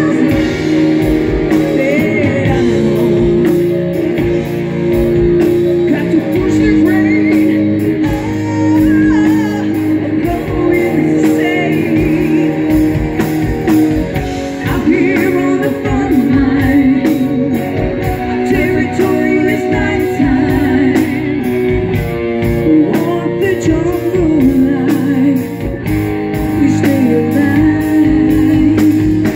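Live rock band playing: a woman singing lead over two electric guitars and a drum kit.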